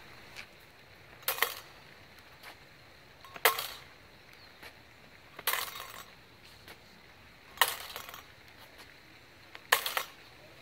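Steel rapier blades clashing as a cut in false fourth is met by a parry of fourth, five sharp clashes about two seconds apart, each ringing briefly.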